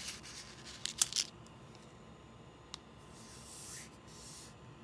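Crinkling of a small plastic bag of resin diamond-painting drills and little clicks of loose drills on a tabletop as the torn bag is handled, loudest about a second in. A single small tick follows, then a soft rustle as a hand brushes across the table.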